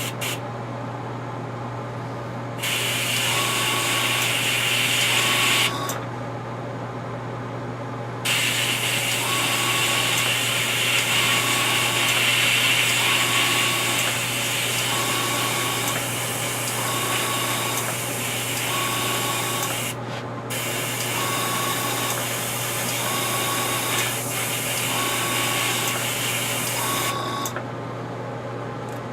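Airbrush spraying paint in two bursts of hiss, a short one and then a long one lasting about nineteen seconds, over a steady low hum.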